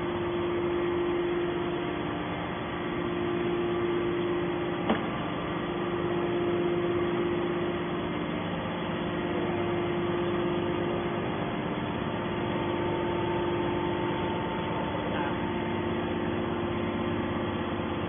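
Steady machine hum with a few held tones, typical of a hydraulic scrap-metal baler's power unit running while the press stands still. One sharp click about five seconds in.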